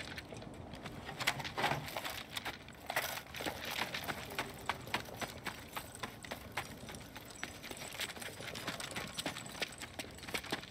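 Boots running on a dirt street with the rattle and jingle of soldiers' gear and weapons: a string of irregular footfalls and small clicks.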